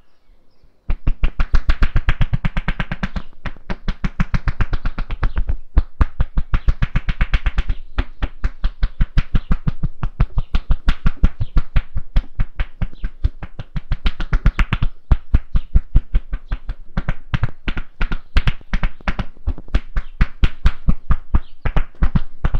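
Rapid percussive massage: hands chopping and slapping on a person's body in a fast, even rhythm, starting about a second in and pausing briefly a few times.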